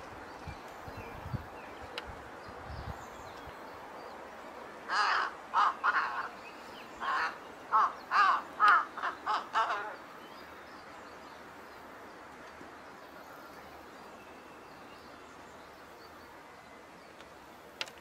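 A bird calling outdoors: a quick series of about ten short calls, starting about five seconds in and stopping about five seconds later, over a faint steady background hiss.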